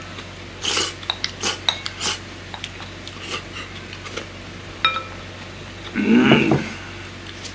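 A spoon scrapes and clinks against a ceramic bowl as the last of a rice bowl is scooped up, with a quick run of scrapes in the first couple of seconds and a ringing clink just before the five-second mark. Near the end comes a short voiced breath from the eater, the loudest sound.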